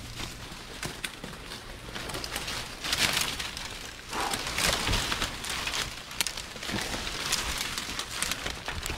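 Footsteps pushing through dense brush: leaves rustling and twigs and branches snapping and crackling, loudest about three seconds in and again around four to five seconds in.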